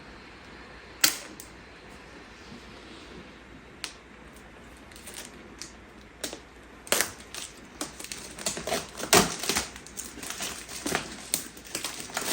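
Close-miked opening of an iPad Air's paper-sealed retail box. A few sharp isolated clicks are followed, from about seven seconds in, by a dense run of crackly ticking as the paper tear strips are ripped off.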